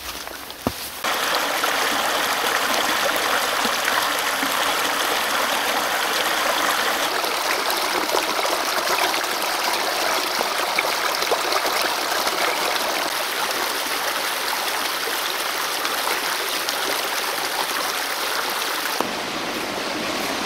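Small forest brook rushing and splashing over mossy rocks in a little cascade, a steady water sound. It starts about a second in, right after a footstep on the trail, and drops slightly in level near the end.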